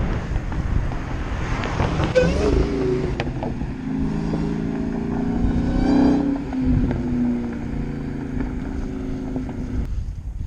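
Wind rumbling over the microphone of a bicycle rider moving along a road, with a motor vehicle passing about six seconds in.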